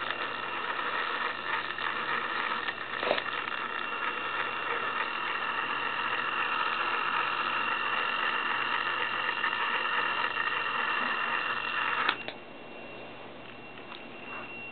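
Traxxas Rustler RC truck's electric motor and gearbox running steadily with a thin high whine, cutting off suddenly about twelve seconds in.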